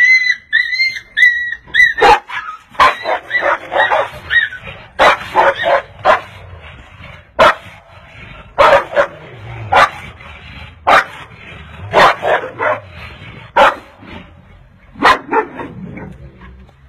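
Two dogs barking and yipping as they scuffle, sharp barks every second or so with higher yelps between. It opens with a quick run of short high-pitched calls.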